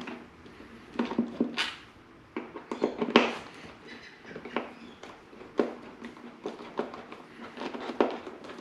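Irregular clicks and knocks of hand tools on metal: an Allen socket being fitted and worked on the stiff, Loctited bolts of a motorcycle's tank latch.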